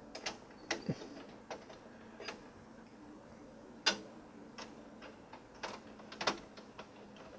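Screw being threaded by hand into the PC case's rear expansion-slot bracket to hold the graphics card: scattered light clicks and scrapes, the sharpest about four seconds in and a small run of them around six seconds.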